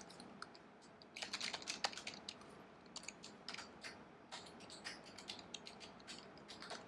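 Typing on a computer keyboard: faint, irregular runs of short key clicks in small bursts.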